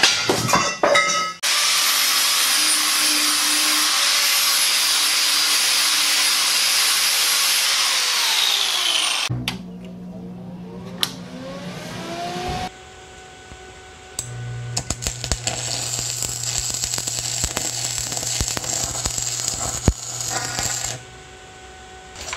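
A high-speed power tool runs and then winds down in pitch. After that a Vulcan 225 stick welder hums steadily, and in the later part the welding arc crackles over the hum as nuts are tack welded.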